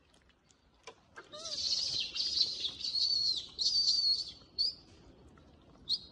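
A run of loud, high-pitched chirping animal calls, about six in quick succession over some three seconds, then two short chirps near the end.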